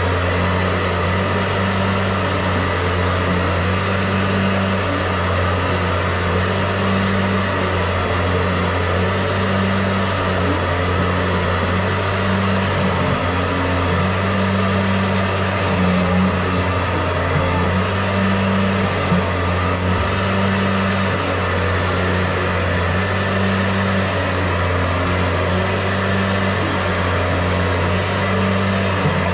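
Electric motor of a drain-cleaning machine running steadily, a low hum with a higher tone that comes and goes every second or two.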